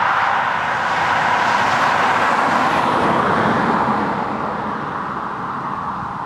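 Ford Lightning pickup doing a burnout on new tyres: the engine at high revs and the spinning rear tyres make a loud rushing noise that fades after about four seconds.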